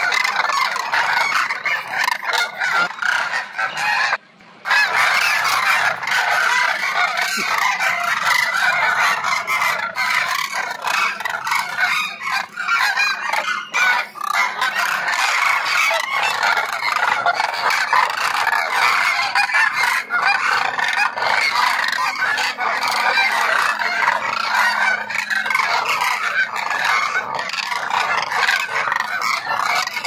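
A large flock of cranes calling together: a dense, continuous chorus of honking calls, broken by a brief silence about four seconds in.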